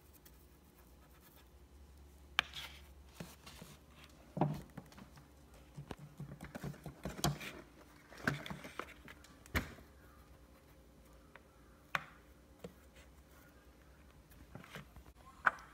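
Quiet, scattered taps and light scrapes of a small paintbrush dabbing on a paint card and a paper plate, with a few sharper clicks.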